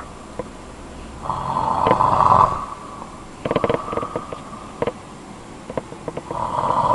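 A man snoring in his sleep. There are two long snores about five seconds apart, with a burst of quick clicking rattles between them.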